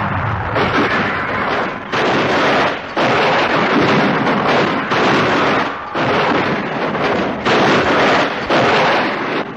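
A big car rolling over on pavement: a run of loud crashing and scraping of sheet metal on the road, coming in surges about a second apart.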